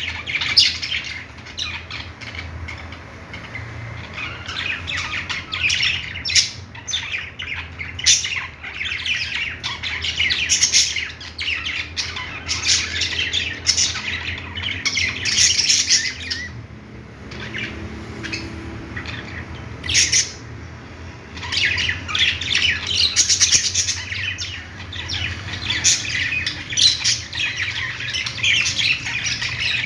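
A group of pet budgerigars chattering, with rapid chirps and squawks in busy overlapping bursts and a brief lull a little past the middle.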